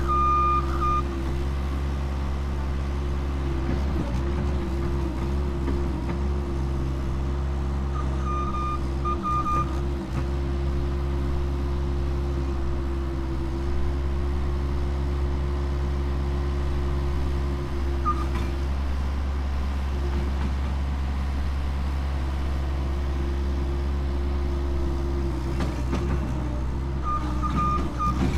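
Bobcat's diesel engine running steadily as it works, its pitch wavering now and then under load. Its reversing alarm beeps in short runs near the start, about a third of the way in, once briefly past the middle, and again near the end.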